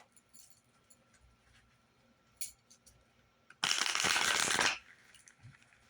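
Tarot cards being handled with a few light clicks, then shuffled in one brisk burst of about a second, a little past halfway through.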